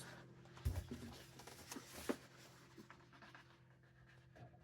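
Faint handling sounds from an egg incubator being set up: a soft low knock about a second in, then a few light clicks, as of its lid and control buttons, over a low steady hum.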